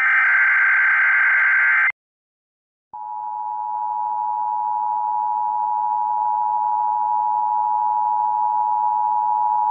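Emergency Alert System tsunami warning tones. The last of the three SAME header bursts is a raspy, buzzing digital data burst that ends about two seconds in. After a second of silence, the steady two-tone EAS attention signal starts and holds.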